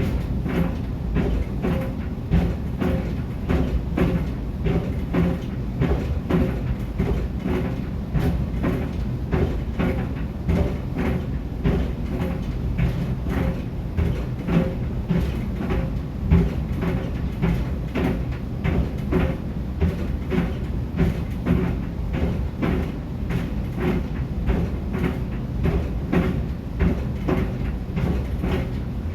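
A pair of Puma sneakers tumbling in a running clothes dryer, thumping rhythmically against the drum in an even, repeating beat over the machine's steady low hum.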